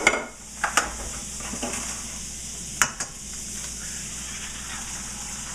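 Butter sizzling steadily in a hot frying pan, with a few sharp knocks as eggs are cracked and dropped in.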